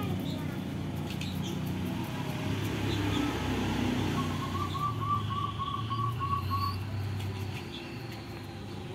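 A bird calling a quick run of about nine short, even notes, starting about four seconds in, over a steady low hum.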